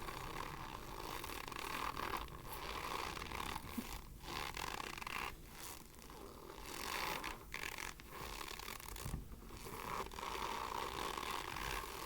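Argo cornstarch crunching up close: a continuous gritty noise that drops out briefly several times.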